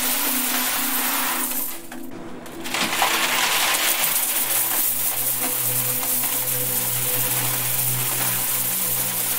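A continuous stream of coins pouring into a metal box and clattering onto a pile of coins. The clatter thins out briefly about two seconds in, then resumes. A steady low drone of held tones runs underneath.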